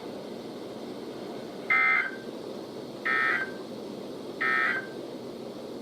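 Emergency Alert System SAME digital data tones from a weather radio: three short buzzy bursts, evenly spaced about a second and a half apart.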